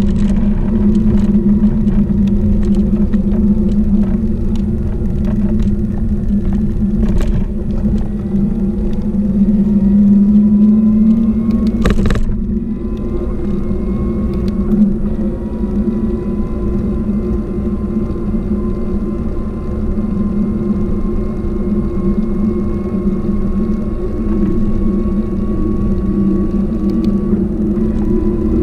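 Cargo bike rolling along a paved path: wind rumble on the action camera's microphone over a steady hum, with a faint whine that rises slowly as the bike picks up speed and drops near the end.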